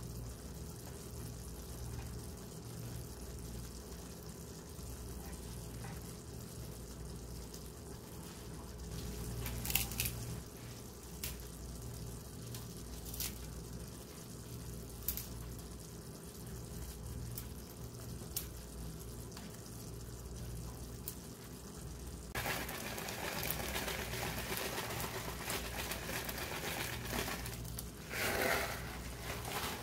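Tomato sauce with eggs simmering in a pan: faint bubbling and scattered small pops over a steady low hum. About two-thirds of the way through, a louder hiss sets in.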